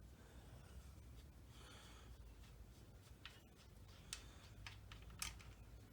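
Near silence with a few faint, short clicks in the second half: hand tools working the engine-case bolts loose.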